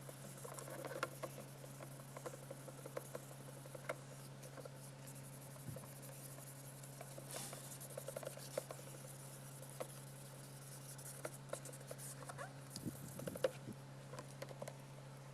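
Light, irregular scratching and clicking from hand work on a plastic car tail-light lens, over a steady low hum.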